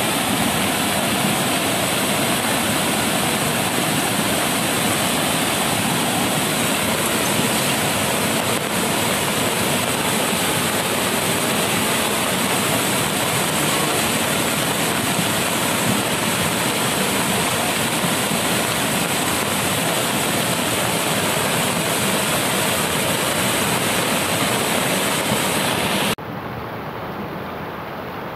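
Muddy flash-flood water rushing in a torrent down a steep channel: a loud, steady, churning rush of water. About two seconds before the end it drops suddenly to a quieter, duller rush of floodwater.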